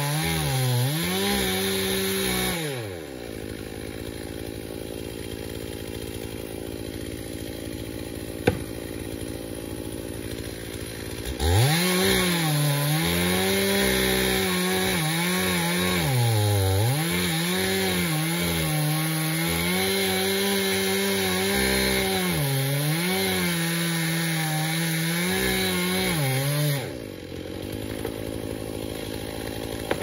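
Two-stroke chainsaw cutting timber at high revs, its engine note sagging and recovering as the chain loads up in the cut. It drops back to a quieter, steadier running in the middle, then a second long cut follows, with a single sharp click between the two.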